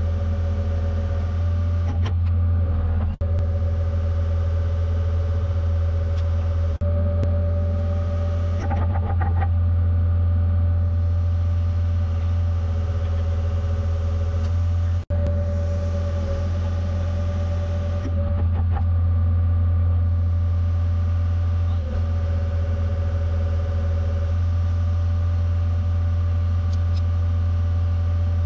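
Excavator's diesel engine running steadily, a strong low drone with a steady higher tone above it, picked up through a camera mounted on the bucket. The sound breaks off abruptly for an instant a few times, most sharply about halfway through.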